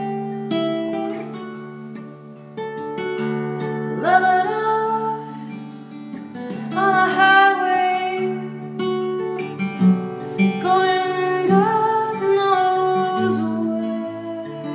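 Steel-string acoustic guitar strummed and picked, with a woman's singing voice entering about four seconds in and carrying sustained, gliding notes over it.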